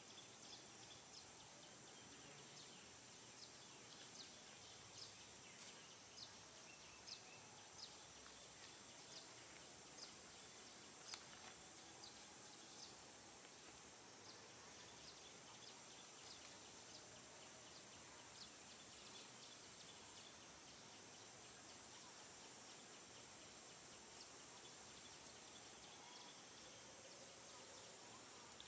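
Near silence: faint outdoor ambience with a steady, high insect hum and scattered short, high chirps, more frequent in the first half.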